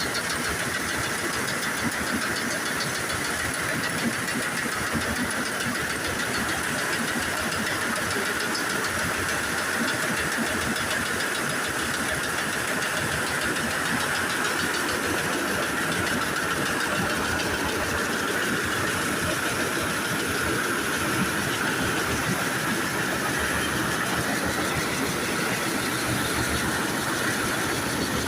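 Coffee dryer machinery running steadily: a continuous, even mechanical drone with a constant hiss on top, unchanging throughout.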